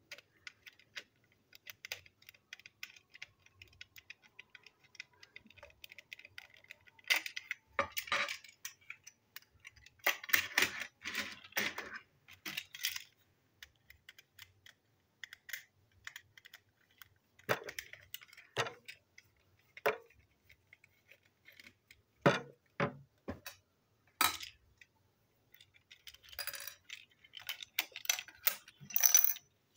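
Screwdriver turning small screws in a plastic toy train car and the plastic parts being handled and pulled apart: a run of fine rapid ticking at first, then scattered louder plastic clicks, clacks and rattles.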